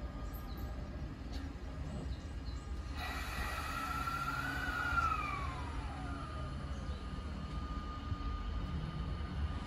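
E217 series electric train starting to pull away: a whine from its VVVF inverter drive sets in about three seconds in, rises slightly, then glides down in pitch as the train accelerates, over a low steady rumble.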